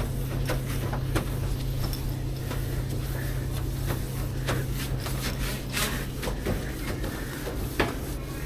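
A steady low hum with scattered knocks, clicks and rubbing, as of objects being handled.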